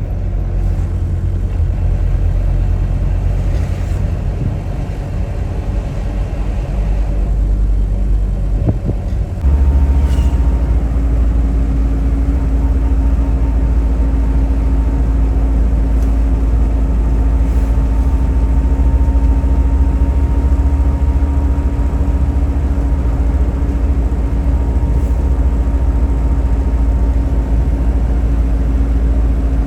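A vehicle running along a road as it is ridden, with heavy low wind rumble on the microphone. About a third of the way in it gets louder and a steady engine hum sets in and holds.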